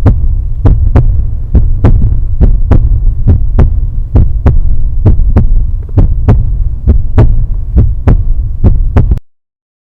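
Heartbeat sound effect: paired lub-dub thumps repeating a little under once a second over a low steady hum, stopping abruptly about nine seconds in.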